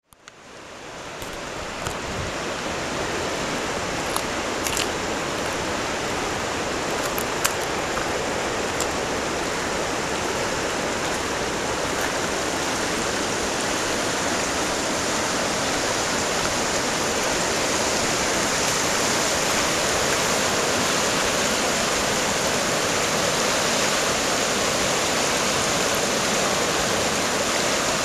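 Fast-flowing floodwater of a river in spate rushing steadily, a loud even roar that swells up in the first second or two. A few faint ticks come through in the first several seconds.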